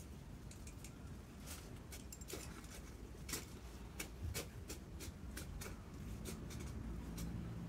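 Faint, irregular rustling and crackling of leaves and stems as plants are handled and pulled in a garden bed, over a steady low background rumble.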